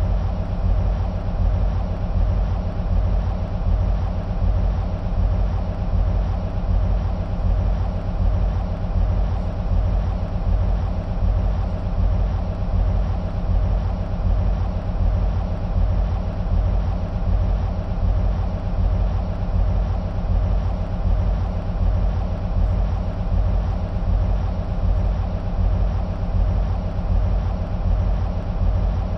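EMD SW1500 switcher locomotives' V12 two-stroke diesel engines idling: a steady, low, pulsing rumble.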